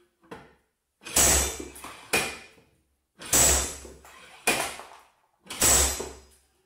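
Large slide hammer's weight slammed back against its end stop five times, about a second apart: sharp metallic clangs, each with a short ringing tail. The hammer is pulling on an injector-puller adapter threaded into a diesel injector clamped in a vise.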